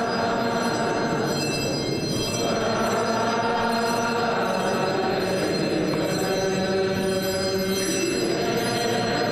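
Voices singing Ge'ez liturgical chant over continuous, clanging bell ringing.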